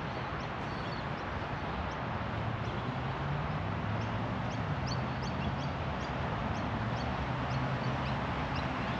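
Open-air park ambience: a steady wash of background noise with short, high bird chirps repeating through the middle, and a low drone coming in about three seconds in.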